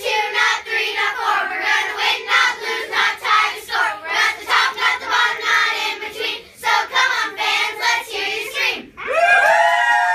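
Group of girls chanting a cheer in unison, in quick rhythmic syllables. About nine seconds in it breaks into one long, high, held shout.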